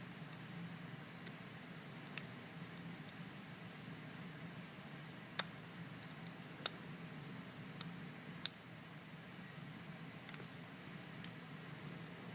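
Lock pick and tension wrench clicking against the pins and core of a Lockwood 334M45 stainless steel padlock during picking: scattered small, sharp clicks at an irregular pace, a few of them louder, over a faint steady low hum.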